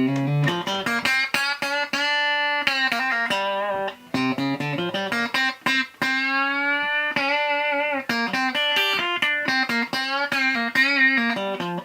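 Clean electric guitar, a Fender Telecaster through a Fender Super 210 amp with a Boss CS-1 compressor pedal, playing picked single-note lines with a few long held notes and a bend about six seconds in, at an even, squeezed level.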